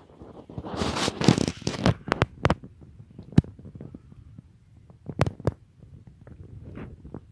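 Close rustling of dry grass as a small dog noses and sniffs through it, with a burst of rustle about a second in and several sharp separate clicks and knocks through the rest.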